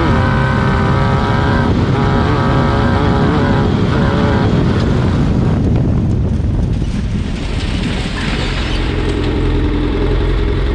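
VW-powered Class 9 off-road buggy engine running at high revs for about four seconds, then dropping off through a rougher, noisier stretch, and settling into a steady idle over the last couple of seconds.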